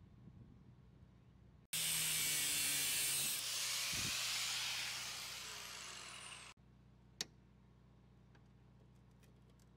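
A power tool runs for about five seconds, a loud hissing noise that starts and stops abruptly and fades somewhat over its second half. A single sharp click follows.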